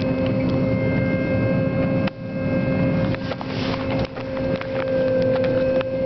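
John Deere 9500 combine running under load while harvesting corn, heard inside the cab: a steady mechanical drone with a hum and scattered clicks and rattles. It dips briefly in loudness twice.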